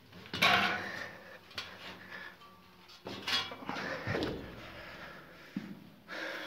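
Irregular scuffs and knocks of people clambering through a narrow tunnel cut in soft rock, the loudest about half a second in, with more a little after three seconds.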